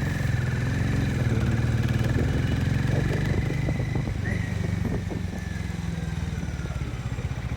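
Harley-Davidson X440's single-cylinder engine running steadily on the move, with road noise. A thin, wavering high whine sits above the engine in the first half.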